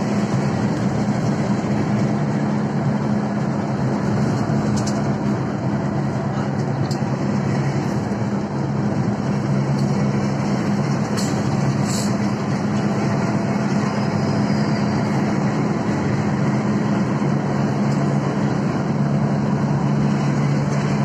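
Inside an intercity bus cruising at highway speed: a steady low engine drone mixed with tyre and road noise, with a couple of sharp ticks or rattles a little past the middle.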